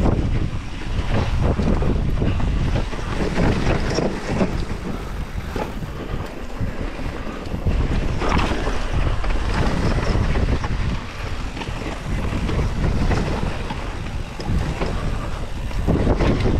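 Wind buffeting the microphone of a mountain bike riding down a rough trail, with a constant rumble and frequent knocks and rattles from the bike over the ground.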